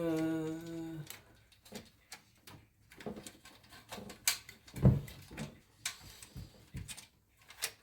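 A short held vocal hum at the start, then scattered clicks and knocks of computer parts and cables being handled during the build, the loudest knock about five seconds in.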